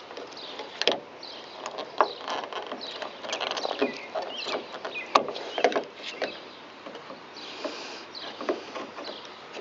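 Irregular clicks, knocks and rattles of a van door handle and its linkage rod being fished into the door by hand, with a short scrape about three-quarters of the way through.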